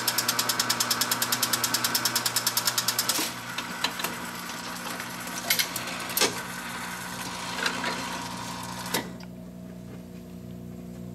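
Wurlitzer 2700 jukebox's record-changing mechanism cycling after a selection is made. A fast, even run of clicks lasts about three seconds, then a few separate clicks and clunks follow as the record is loaded, all over a steady motor hum.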